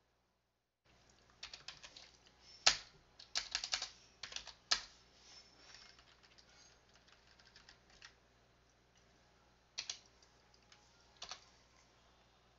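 Computer keyboard keys being typed, starting about a second in: quick runs of keystrokes over the next few seconds, then a few single key presses near the end.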